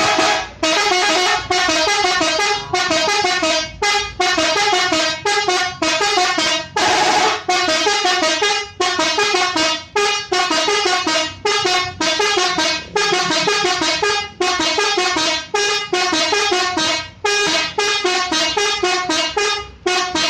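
Telolet horn: a set of air-horn trumpets sounding one after another to play a tune of short stepping notes, in repeated quick phrases with brief breaks between them. About seven seconds in, one longer chord is held.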